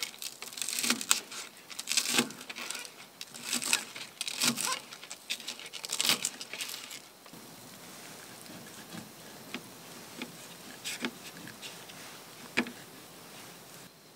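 Camp cooking sounds: irregular taps, scrapes and clinks of utensils, busy for the first half, then only a few scattered knocks.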